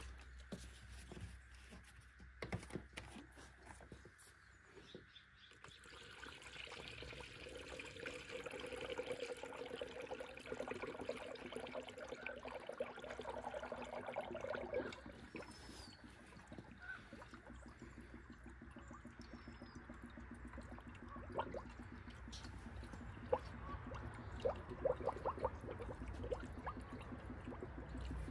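Green coolant pouring from a plastic jug into a spill-free funnel on the radiator filler, the stream splashing into the funnel. The pour builds about six seconds in and eases off around fifteen seconds, followed by quieter trickling with scattered small clicks.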